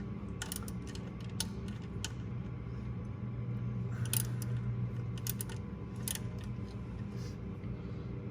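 Scattered clicks and taps of a 3/8 socket wrench and small hardware as the ground bolt on the back of an alternator is loosened, over a steady low hum.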